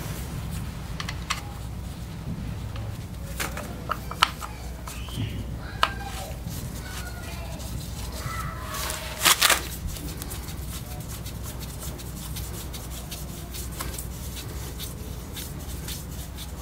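Scattered light clicks and taps from a filler plug being fitted back into a Royal Enfield Bullet's primary chaincase cover by hand, with a few sharper clicks about four, six and nine seconds in. A steady low hum runs underneath.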